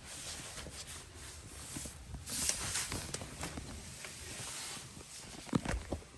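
Rustling and shuffling of someone moving about and handling things, with a few light knocks about five and a half seconds in.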